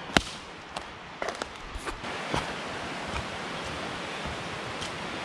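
Footsteps on a dirt and leaf-litter woodland trail, a few irregular crunches and snaps over a steady outdoor hiss. A sharp crack just after the start is the loudest.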